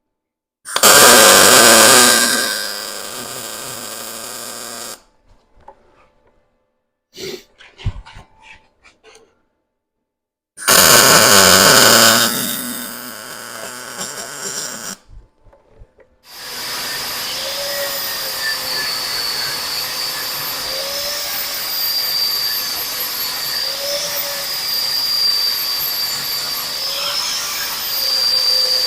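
Two short bursts from a power tool on steel, then an electric grinder running steadily on welded steel sleeves with a high whine whose pitch wavers as it is pressed into the metal.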